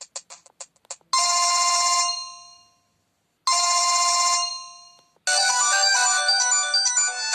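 Samsung E1125W mobile phone playing its built-in tones through its small speaker. A run of quick, fading beeps ends a tone, then the same bright chime sounds twice, each ringing out for about a second. About five seconds in, a new polyphonic ringtone melody begins.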